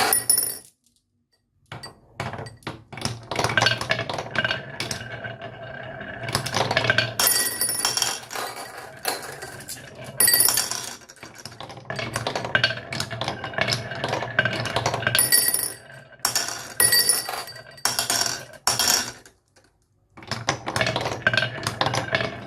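Rapid, irregular clinking and clattering of small hard toys, with bright metallic ringing on many of the clicks and a steady low hum underneath. The sound stops briefly twice: about a second in, and again near the end.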